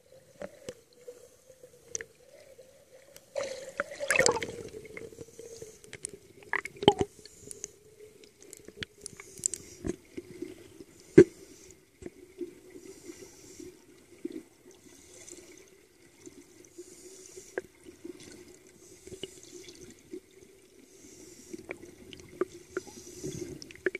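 Underwater sound heard through a camera housing on a scuba dive: regulator exhaust bubbles hissing every second or two, with a louder rush of bubbles about four seconds in. Sharp clicks and knocks against the housing, over a steady low hum.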